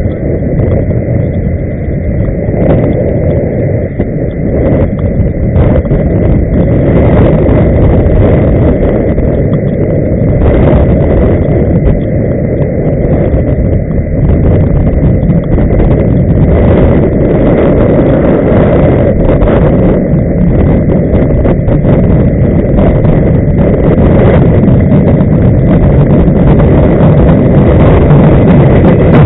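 Loud, steady low rumble of inline skate wheels rolling on road asphalt.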